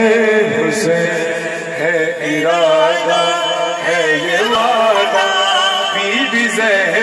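A man's voice reciting a noha, a Shia lament, in a long sliding, wavering melodic line, amplified through a microphone and PA system, over a steady low hum.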